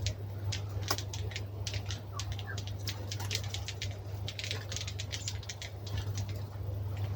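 Birds calling as they settle to roost in a hawthorn: a rapid, irregular run of short, sharp ticking call notes with a few brief chirps. A steady low hum runs underneath.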